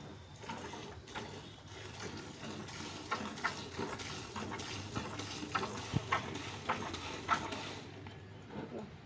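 Cow being milked by hand: squirts of milk hitting the milk in a plastic bucket, a quick rhythmic spurting about twice a second that grows louder in the second half.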